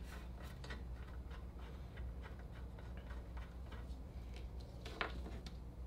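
Faint, irregular light clicks and taps of small metal parts and hand tools being handled, with one sharper click near the end, over a steady low hum.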